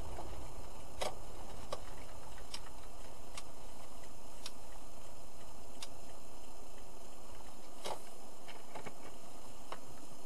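Car driving slowly along a rough dirt track, heard from inside the cabin: a steady low rumble of road and engine noise with sharp clicks and knocks at irregular intervals, about one a second, as the car goes over the bumpy surface.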